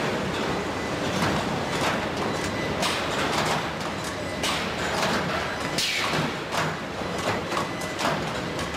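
Factory noise of a robotic car-body assembly line: a steady machinery din with frequent short clanks and clicks, and a couple of longer hisses about halfway through.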